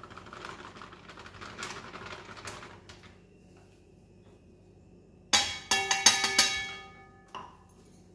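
Dry rice flour rustling and scraping as it is scooped and poured with a stainless steel tumbler. Then a quick run of about five loud, ringing clanks of the steel tumbler against the steel plate, and a single softer knock near the end.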